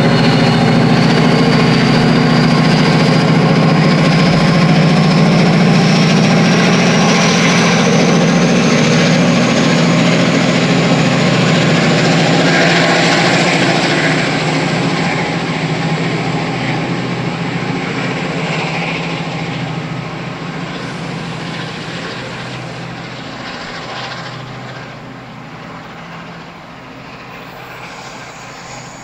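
Chiltern Railways Class 68 diesel-electric locomotive pulling away with its coaches, its heavy engine drone steady while a high whine rises in pitch over the first ten seconds as it gathers speed. The sound fades steadily through the second half as the train moves off down the line.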